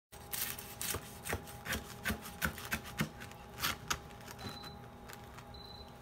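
A knife cutting through a toasted croque monsieur on a cutting board: a series of irregular crisp crunches and rasps as the blade goes through the crust. The strokes die down after about four seconds.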